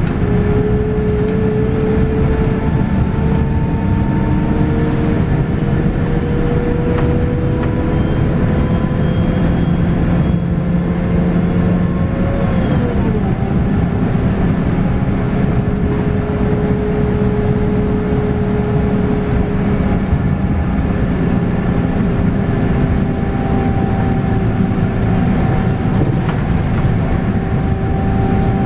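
Scania K280UB bus's 9.3-litre five-cylinder diesel and ZF Ecomat six-speed automatic gearbox, heard from inside the cabin as the bus pulls along. A low rumble runs under a whine that climbs slowly as the bus gathers speed, drops in pitch at an upshift about 12 to 13 seconds in, then holds nearly steady.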